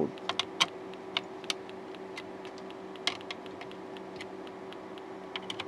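Scattered light clicks and ticks of a screwdriver checking and tightening the screws on a monitor's circuit board and metal chassis, over a steady low hum.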